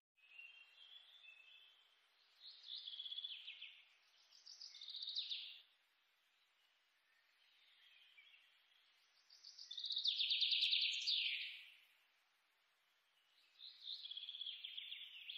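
Birds chirping in short trilled phrases that fall in pitch, repeating every two to three seconds; the loudest phrase comes about ten seconds in.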